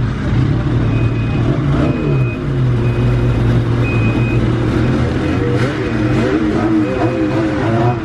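Ski-Doo snowmobile engine running at low revs, its pitch dipping briefly about two seconds in and wavering near the end, while a short high beep repeats about once a second: the sled's reverse warning beeper.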